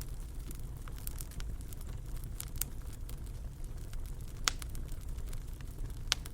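Wood fire crackling in a fireplace: a steady low rumble of the flames with frequent sharp pops and snaps, two louder pops about four and a half and six seconds in.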